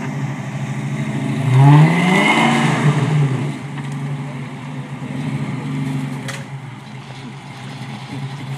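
Unimog's V8 engine revving: the pitch rises sharply about a second and a half in and stays loud for a second or two, then drops back to a steady run, with a smaller rise about six seconds in.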